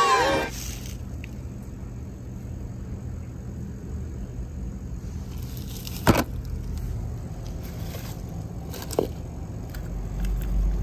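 Toy cars clacking as a hand picks them out of a plastic tub: one sharp clack about six seconds in and a smaller one about nine seconds in, over a steady low rumble.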